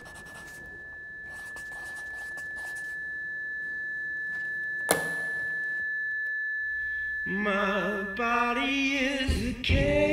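A single steady high-pitched tone that slowly swells louder, with one sharp click about halfway through. About seven seconds in, a woman's voice starts singing with a wavering pitch over music, and a deep bass hit lands near the end.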